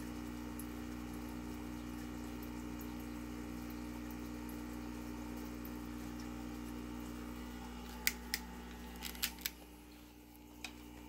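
Aquarium pump running with a steady hum and a light wash of moving water. About eight seconds in, a handful of sharp clicks and knocks from the phone being handled, as the hum fades.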